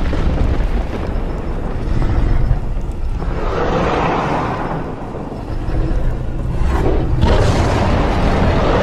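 Thunderstorm sound effect: rolling thunder over a constant deep rumble, with two long surges about three and seven seconds in.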